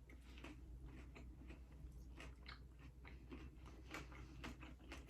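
Faint chewing of a mouthful of toasted BLT sandwich, with small irregular crunches from the toasted bread.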